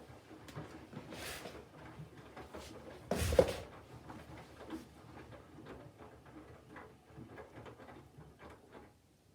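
Candy front-loading washing machine's drum turning the load during the Mix Power System+ phase of the wash: irregular sloshing and soft knocks of wet laundry tumbling, with one louder slosh about three seconds in. The drum comes to a stop near the end.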